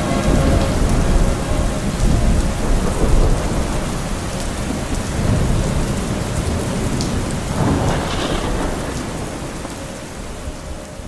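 Rain and thunder sound effect: steady heavy rain with low thunder rumbling, slowly fading out toward the end.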